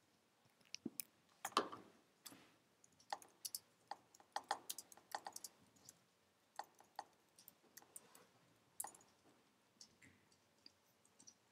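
Faint, irregular clicking of a computer mouse and keyboard, with one louder, longer click about one and a half seconds in.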